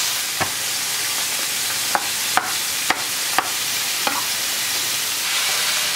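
Thin strips of beef sizzling steadily in sesame oil in a stainless-steel frying pan. About half a dozen sharp taps sound over it: a knife chopping garlic on a plastic cutting board.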